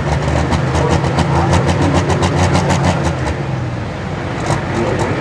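John Deere Pro Stock pulling tractor's turbocharged diesel engine running at low revs, not yet at full throttle. Its deep, rapidly pulsing sound eases off about three and a half seconds in.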